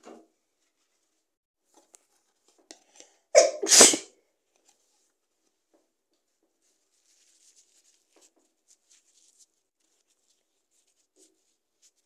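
A woman sneezes once, loudly, about three and a half seconds in: a sharp start followed at once by a longer blast.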